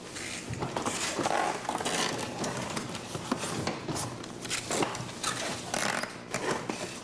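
Cardboard boxes being handled, folded shut and set down on a work table: a run of irregular knocks, scrapes and rustles.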